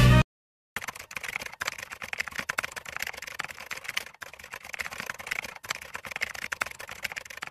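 Rapid keyboard typing clicks, a typing sound effect, starting just under a second in, with a couple of brief pauses.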